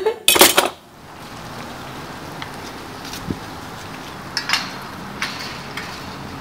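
A loud, sharp noise in the first second, then a steady outdoor hiss of wind and street ambience with a few faint clicks.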